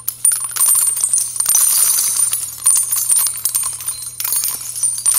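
Jingling of small bells: a dense, rapid tinkling that goes on without a break, over a faint steady low hum.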